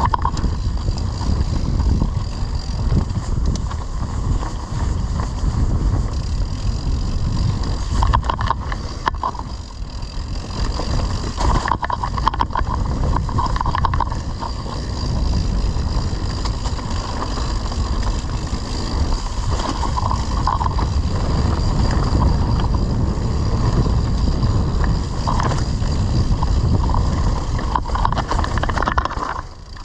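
Mountain bike ridden over a rough off-road trail: wind rushing over the microphone with the rattle and knocks of the bike over bumps.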